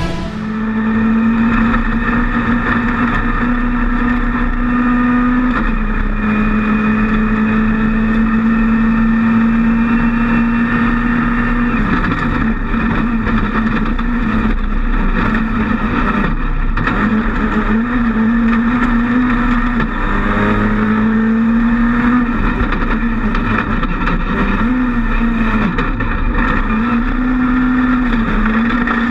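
Ford rally car's engine heard from inside the cockpit, running hard at high revs. The pitch drops and climbs again every few seconds as the driver shifts and lifts, over road noise from the gravel stage. About two-thirds of the way through, the revs fall away briefly as the car spins, then climb again as it gets going.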